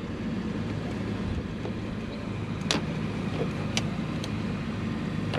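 A steady low engine hum with three sharp clicks in the second half, the clicks coming as plastic bumper trim and clips are worked loose.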